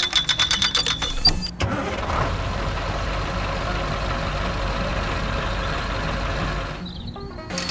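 Rapid, even clicking for the first second and a half, then an engine running steadily for about five seconds, which drops away shortly before the end.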